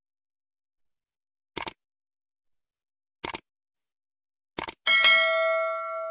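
Subscribe-button animation sound effects: three quick double mouse clicks about a second and a half apart, then a bell chime from about five seconds in that rings and slowly fades.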